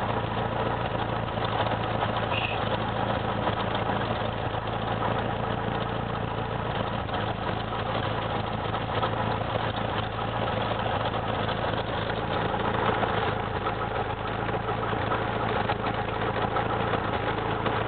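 Cessna 172's piston engine and propeller heard from inside the cabin, running steadily at low power as an even drone.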